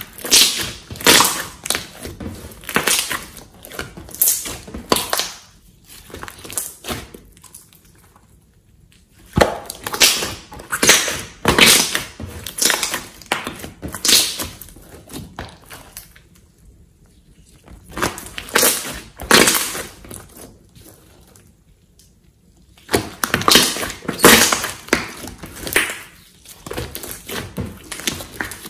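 Hands kneading and pressing a large lump of slime, giving rapid squelching and clicking sounds. These come in four bursts of a few seconds each, with short quiet gaps between them as the slime is folded and pressed again.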